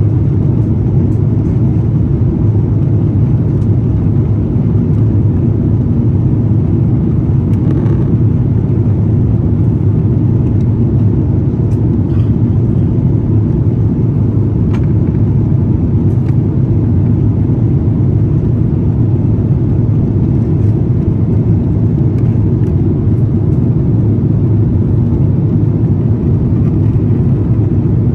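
Steady cabin noise of an Airbus A350-900 airliner in flight: an even, low rumble of engines and rushing airflow heard from inside the cabin.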